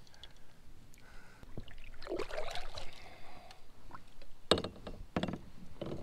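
Quiet knocking and handling sounds from a kayak, with water faintly moving; a few sharp knocks come near the end as gear bumps the hull.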